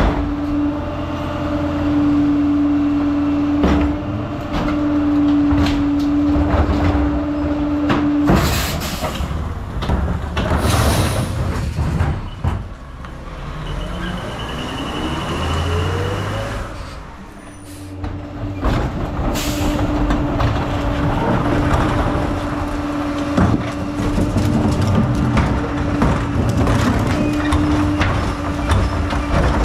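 Rear-loader garbage truck with a PakMor packer body on a Crane Carrier chassis, its engine and hydraulics running with a steady whine. Short air-brake hisses come about 8, 11 and 19 seconds in, with the engine note rising in between as the truck pulls ahead, and the steady whine returns once it stops.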